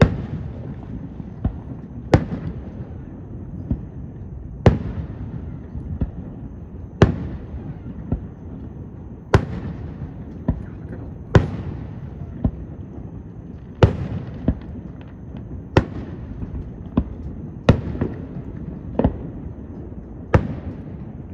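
Aerial firework shells launching and bursting: a steady series of bangs one to two seconds apart, louder and softer ones mixed, each trailing off.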